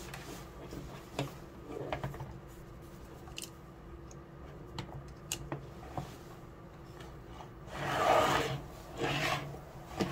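Gloved hands handling cables, alligator clips and a battery charger on a wooden workbench: scattered small clicks, then two louder rubbing scrapes about eight and nine seconds in as the charger is slid across the bench.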